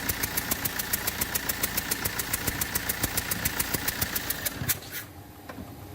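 Fiat Multijet common-rail diesel engine idling with a sharp, rhythmic ticking, about eight ticks a second, the sound of compression leaking past a failed injector seal. About three-quarters of the way through the sound gets quieter.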